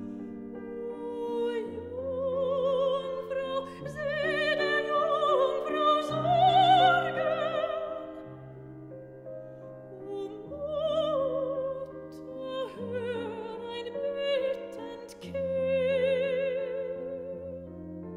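Background music: a classical, operatic vocal piece, with a singer holding long notes with vibrato over sustained accompaniment.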